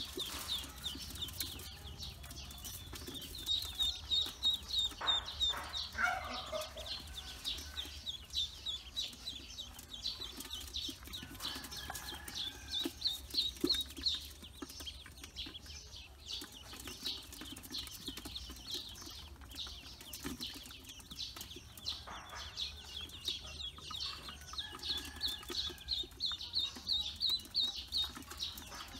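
A brood of domestic ducklings peeping, many short high-pitched peeps in quick runs that overlap almost without pause. Now and then a lower, longer call from a larger bird sounds under them.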